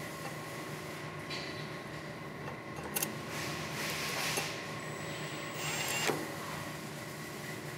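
Cordless drill/driver driving the faceplate screws into a steel door's lock edge in short bursts, about three seconds in and again near six seconds. The second burst ends in a falling whine as the motor spins down. A steady hum runs underneath.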